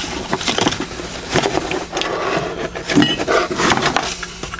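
Handling noise close to the microphone: irregular knocks, clicks, rubbing and scraping as an object is picked up and moved about.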